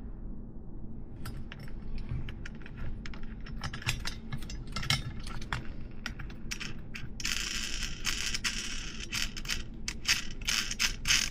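Small metal parts clicking and clinking as a BMX hub's axle, cone nut and fork dropout are worked by hand, with a stretch of scraping between about seven and nine and a half seconds in.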